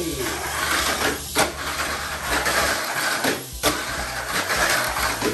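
Tamiya Mini 4WD car running on a plastic track: its small electric motor, gears and wheels make a steady buzzing whine, with a brief dip and a sharp click about every two seconds as it laps.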